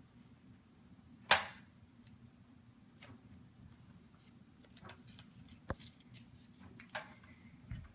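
Handling noise from a doll-size toy desk being set up: one sharp knock about a second in, then scattered light clicks and taps as small parts are moved about.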